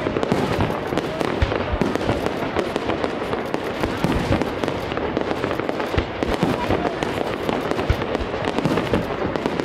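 Aerial fireworks display: a dense, unbroken run of shell bursts and bangs, with heavier booms about every second.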